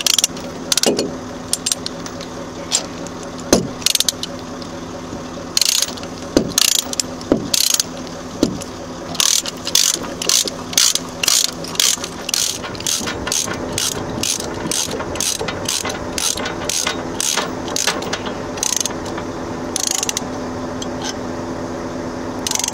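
Ratchet load binder being worked to tension a lashing chain: a run of sharp pawl clicks, about two a second through the middle, with a few heavier clanks earlier on, over a steady low hum.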